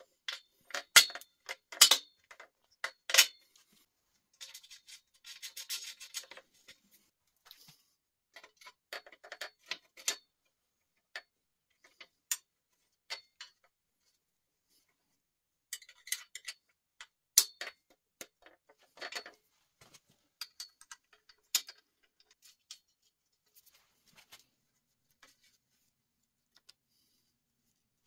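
Hand tools and metal parts clicking and clinking on a bicycle frame as parts are refitted, with a socket ratchet wrench clicking. The sharpest knocks come in the first few seconds, followed by a short rasping stretch and then scattered clicks with quiet gaps.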